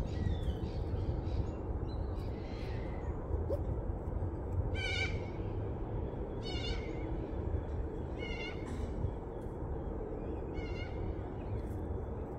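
A short, high, wavering animal call repeated five times, about every one and a half to two seconds from near the middle on, over a steady low rumble.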